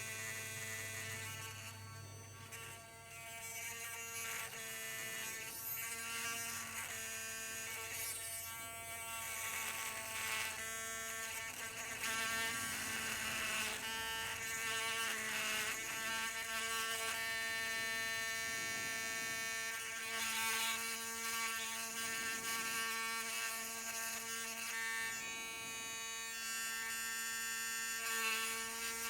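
Small Dremel rotary tool running at a steady pitch, drilling into the plastic crotch piece of a vintage action figure.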